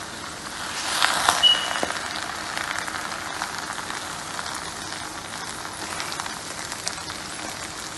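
Jollof rice and shredded cabbage sizzling and crackling in a hot non-stick pot while a wooden spatula stirs and scrapes through it, with a few sharp knocks and a brief squeak about a second in.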